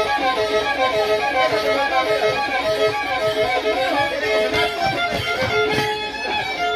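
Violin playing a fast Andean huancadanza tune in short, quickly repeated notes.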